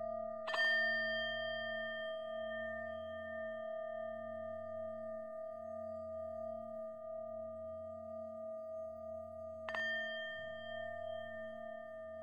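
Ambient meditation background music: a steady low drone with sustained ringing tones, and two struck bell-like chimes, one about half a second in and one near the ten-second mark, each ringing on for several seconds.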